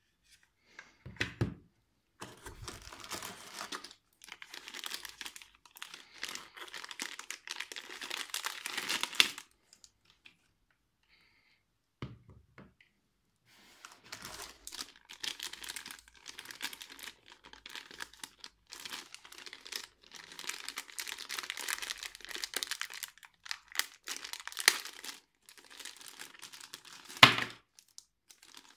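Plastic packaging and bubble wrap crinkling in long stretches as they are handled, with a pause midway. A thud sounds about a second in and a sharper knock near the end.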